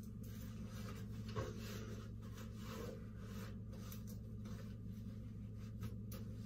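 Faint rubbing and handling noises, with a soft click about a second and a half in and another near the end, over a steady low hum.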